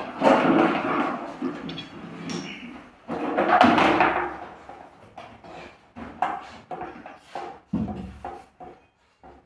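Knocks, thuds and scraping as a metal pot and other kitchen objects are pushed, dragged and tipped over on a tiled floor. There are two longer scraping, clattering stretches in the first half, then a run of short sharp knocks.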